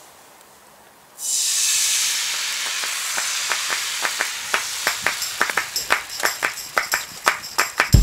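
Crêpe batter hitting a hot, sunflower-oiled cast iron pan: a sudden loud sizzle about a second in that slowly eases into frying, with crackling pops coming faster and faster toward the end.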